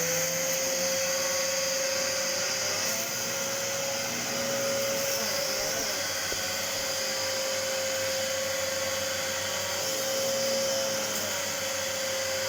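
Hoover Breeze Evo upright vacuum cleaner running steadily with a high motor whine and airflow hiss. Its spinning brush roll is working over Rice Krispies, grinding them to powder rather than picking them up.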